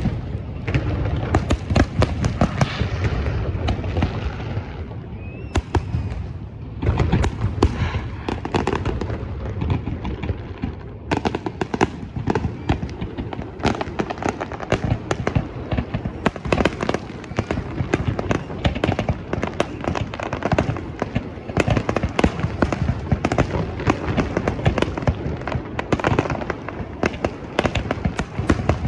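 Fireworks display: a dense, continuous barrage of sharp bangs and crackles, several a second, with a brief thinning about six seconds in.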